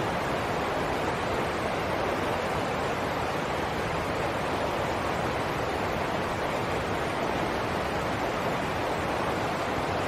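Shallow stream rushing over rocks and a small cascade: a steady rushing of water.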